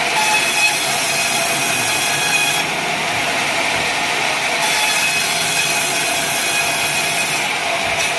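Sawmill saw running and cutting wadang timber. A steady machine noise with a high, hissing cutting sound that drops away for about two seconds midway and then comes back.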